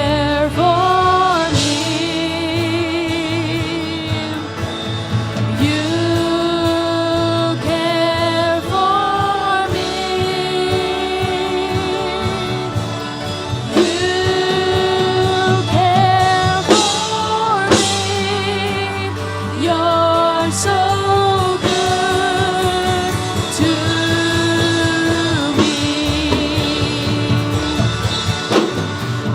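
Worship song: a singer holding long notes with vibrato, gliding between pitches, over instrumental accompaniment.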